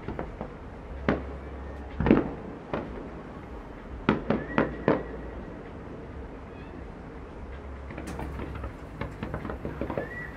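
Aerial fireworks bursting in irregular bangs over a steady low rumble. The loudest bang comes about two seconds in, and a quick run of four follows around the middle. Lighter, faster crackling comes near the end.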